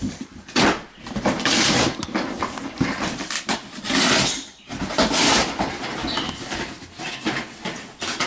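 Wrapping paper and a cardboard toy box rustling and crinkling, in several short bursts of noise.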